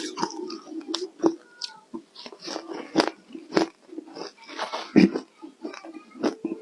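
Ice being bitten and chewed: a run of sharp, irregular crunches, the loudest about five seconds in.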